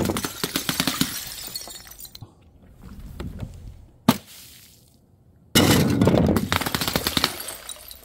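Glass bottles shattering. The tinkle of shards from one break fades out over the first two seconds, a single sharp clink comes about four seconds in, and a second bottle smashes loudly about five and a half seconds in, its pieces scattering and tinkling as they settle.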